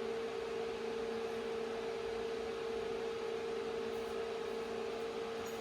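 A steady machine hum over an even hiss, with a strong constant tone and a weaker lower one that drops out near the end.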